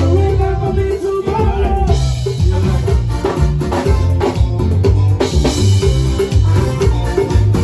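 Band music played through loudspeakers, with a drum kit keeping a steady beat, a prominent repeating bass line and electric guitar.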